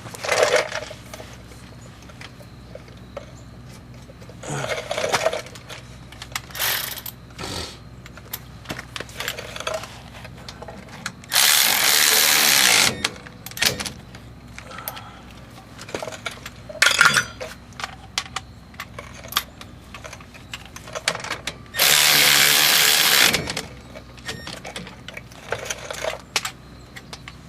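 A power tool driving the brake caliper bolts home: two runs of about a second and a half, each ending as the motor winds down. Short metallic clicks and clanks of tools on the hub and caliper come in between.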